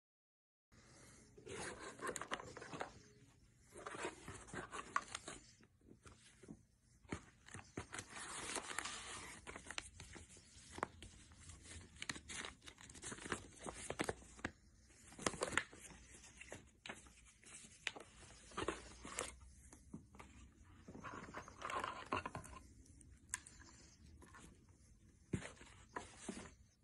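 Paper instruction sheets and plastic packaging rustling and crinkling as a cardboard product box is unpacked by hand, with scattered clicks and taps of parts being handled. It starts about a second in.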